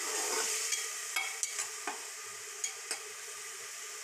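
Spice masala frying in oil and a little water in a pan, sizzling steadily, while a spatula stirs it and knocks against the pan about eight times in the first three seconds.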